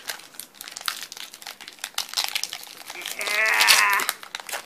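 Foil wrapper of a Pokémon booster pack crinkling and crackling as it is torn open by hand. A brief wavering high-pitched squeal, the loudest sound, comes about three seconds in.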